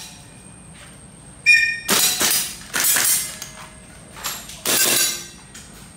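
Gas blowback airsoft rifles firing, about six sharp shots in an uneven run, some close together in pairs (double taps), one with a brief ringing tone.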